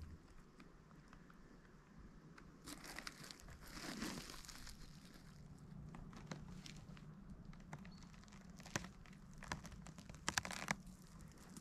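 Dry rustling and crinkling that swells about three to five seconds in, followed by a few sharp clicks or snaps near the end.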